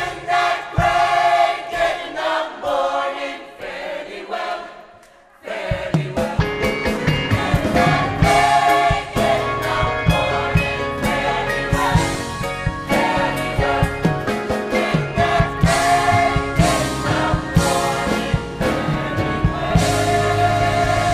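Gospel choir singing with a worship band of keyboard, guitars, bass and drums. The first five seconds are thinner, mostly voices. After a brief drop, the bass and drums come in strongly about five and a half seconds in and the full band carries on with the choir.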